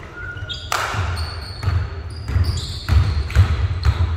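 Basketball bouncing on a hardwood gym floor: a run of irregular thuds about every half second, ringing in the hall, with short high sneaker squeaks in between.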